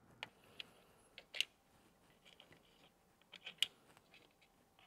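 Faint, scattered small clicks and taps from hands handling parts inside an open computer case, the sharpest about a second and a half in and again near three and a half seconds.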